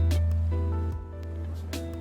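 Background music: a steady bass note under plucked-string chords with a regular beat.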